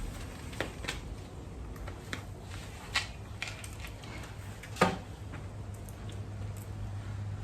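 A few scattered clicks and knocks, the sharpest about three seconds and five seconds in, with a low steady hum coming in about five seconds in.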